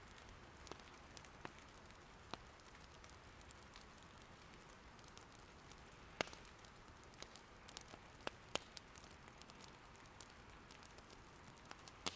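Faint, steady patter of gentle rain, with scattered sharp pops and crackles of wood burning in an irori hearth. The loudest pop comes about six seconds in, and two more follow around eight seconds.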